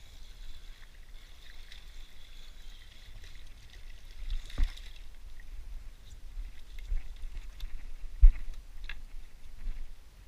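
Spinning reel being cranked, a faint steady whir, as a small striped bass is reeled in; a knock about four and a half seconds in as the fish comes onto the wooden dock, then a louder single thump about eight seconds in.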